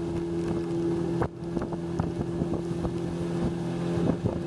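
Engine of a motorized river canoe running steadily at speed, a constant drone over the hiss of wind and rain, with scattered small ticks.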